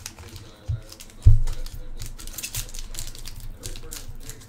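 Sports card packs and cards being handled on a table: quick small clicks and rustles, with two dull thumps about a second in, the second one the loudest.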